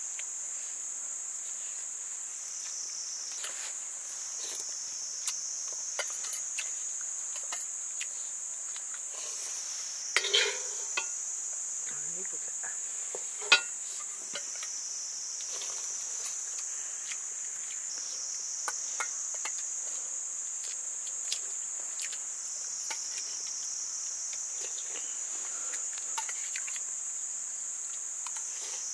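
Steady high-pitched insect chorus, its pitch shifting slightly a few times, with scattered light clicks of kitchenware. There is a short clatter about a third of the way in, and a single sharper clink just before halfway.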